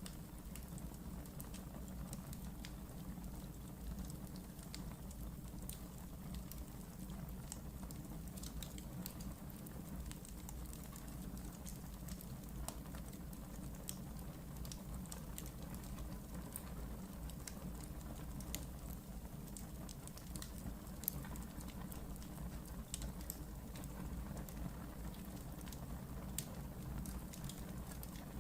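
Wood fire burning in a fireplace: a steady low rumble of flames with scattered sharp crackles and pops throughout.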